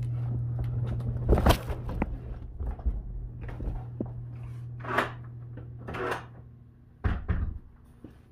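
Hotel room door unlocking with a sharp latch click and swinging open, bags and packages rustling as they are carried in, then the door knocking shut near the end. A steady low hum cuts out as the door closes.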